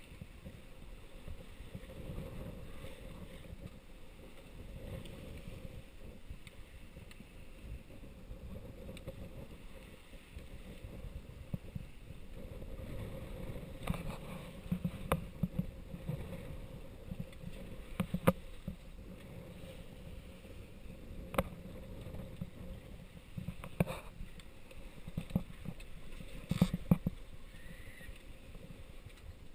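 Sailing yacht under way in a choppy sea: water rushing along the hull with a steady low rumble and wind on the microphone. A handful of sharp knocks come in the second half.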